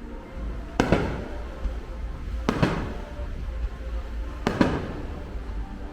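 Fireworks bursting: three sharp bangs about two seconds apart, each a quick double crack with a fading tail, over a steady low rumble and faint music.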